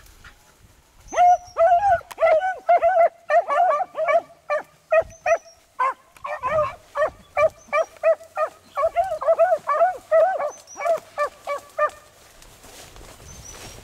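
Beagles giving tongue while running a rabbit's scent line: a fast string of short barks, about three a second, starting about a second in and stopping about two seconds before the end.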